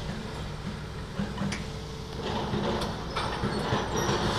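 Hitachi demolition excavator's diesel engine running steadily, with sharp knocks and then, about two seconds in, louder clattering and scraping of concrete wall being broken and falling.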